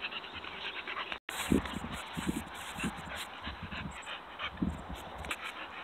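Hog-hunting dogs whining and yipping in short, irregular cries, with a brief break about a second in.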